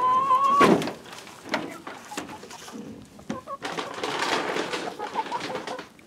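Backyard chickens: a long drawn-out call that rises slightly and stops under a second in with a loud knock, followed by scattered clicks and a patch of rustling from the birds pecking and scratching in pine straw.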